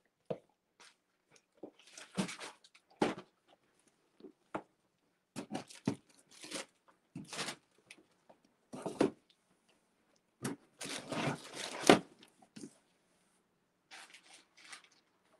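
Plastic packaging rustling and crinkling in short, irregular bursts as items are handled, the loudest near the end.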